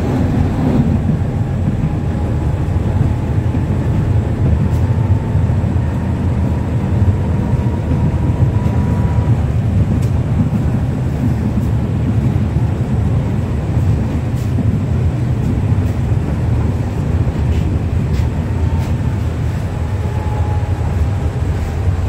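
Tram running along its rails, heard from inside the passenger saloon of a 71-631-02.02: a steady low rumble of wheels and running gear, with a faint thin high tone that comes and goes. Another tram passes close by at the very start.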